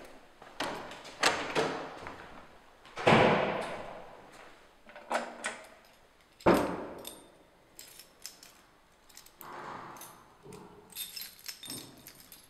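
Handling noises: scattered knocks and clatters, with two louder bangs about three and six and a half seconds in, each ringing on briefly, and a light metallic jingling near the end.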